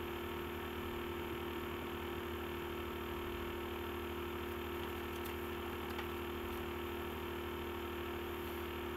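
Steady electrical hum with a faint hiss underneath, unchanging throughout; no distinct event stands out.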